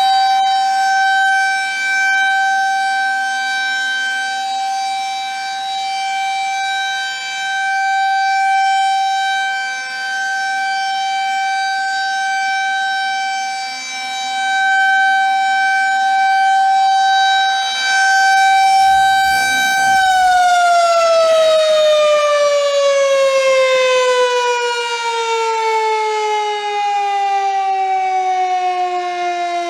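Federal Signal 2001 electromechanical tornado siren sounding one steady tone that swells and fades in loudness. About twenty seconds in, the pitch starts to fall steadily as the siren winds down at the end of its test.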